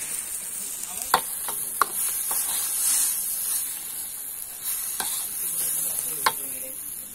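Chicken sizzling in masala in a large wok while a metal ladle stirs it, with a steady frying hiss and a few sharp clinks of the ladle on the pan, the loudest two close together about a second in.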